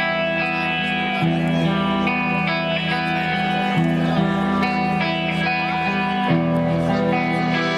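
Live band music led by guitar, sustained chords changing about once a second.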